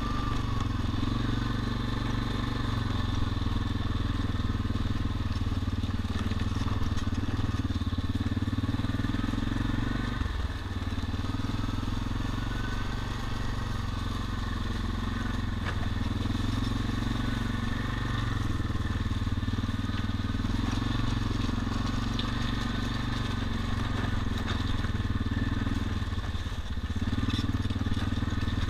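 ATV engine running steadily under way over loose gravel and rocks, with the tyres crunching on the stones. The engine note drops briefly twice, about a third of the way in and near the end.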